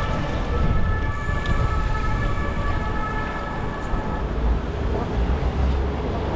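Low rumble of wind and street traffic during a city bicycle ride, with a steady high tone of several pitches that fades out about four seconds in.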